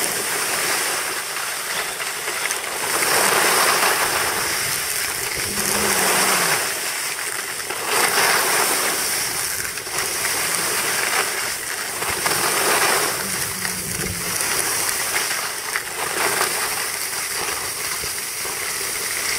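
Skis scraping and hissing over packed snow, swelling with each turn about every two to three seconds.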